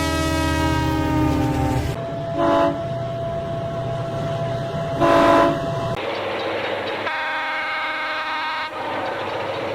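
Locomotive air horns sounding. A long chord over engine rumble drops slightly in pitch and stops about two seconds in. Two short blasts come about three seconds apart, then a fainter horn chord near the end, over the noise of the passing train.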